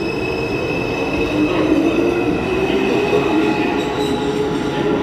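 Bombardier R142 subway train pulling out of the station: wheels rumbling on the rails under a steady high whine that fades out near the end.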